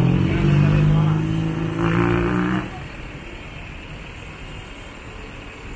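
A motor vehicle's engine running loud and steady close by. The engine sound falls away about two and a half seconds in, leaving quieter traffic hum.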